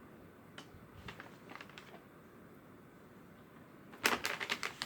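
Faint scattered clicks, then about four seconds in a loud burst of rapid clicking and rustling as something is handled.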